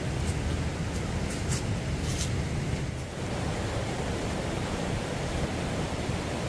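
Steady rushing of a river close by, with a few brief high ticks in the first couple of seconds.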